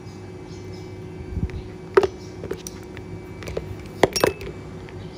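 Beads and a wire loop handled between the fingers: a few short sharp clicks and taps, with a quick cluster of clicks about four seconds in, over a faint steady hum.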